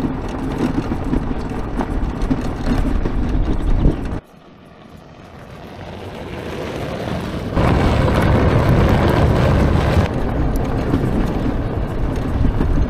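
Homemade electric ATV, a Honda quad converted to hub motors, rolling downhill on a gravel track under regenerative braking: tyre and gravel noise with wind, and no engine sound. About four seconds in the sound drops low, then builds as the quad comes closer and passes by, loudest for a couple of seconds, before the steady ride noise carries on.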